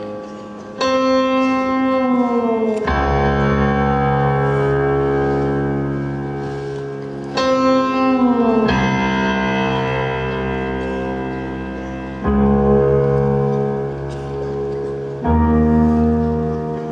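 Slow instrumental music of long held chords, with a new chord swelling in loudly about every three to five seconds; twice a chord slides down in pitch before the next one enters.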